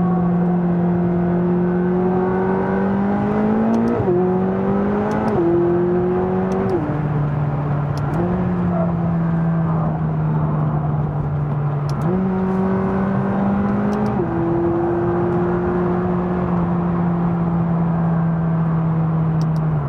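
McLaren 570GT's 3.8-litre twin-turbo V8 pulling hard on the autobahn. Its note climbs, then falls in quick steps as the paddle-shifted gearbox changes up about four, five and a half, and seven seconds in. The engine then runs fairly steadily, with the pitch stepping up around twelve seconds in and dropping back two seconds later.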